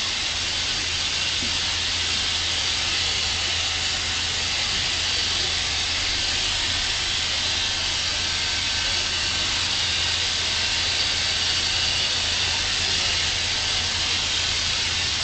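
Steam locomotive standing with a steady hiss over a low rumble.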